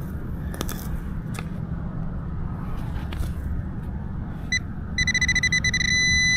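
Nokta Accupoint pinpointer beeping: a single short beep about four and a half seconds in, then rapid beeping that runs into a nearly steady tone near the end as the probe closes on a coin in the dig hole. Under it, a low steady rumble and a few faint knocks.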